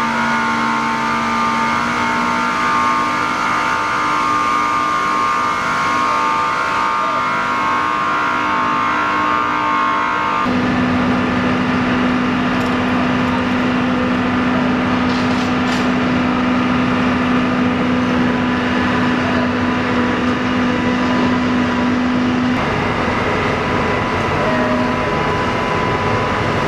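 Steady machinery drone with several held hum tones over a noisy rush; its main hum shifts abruptly to a different pitch about ten seconds in.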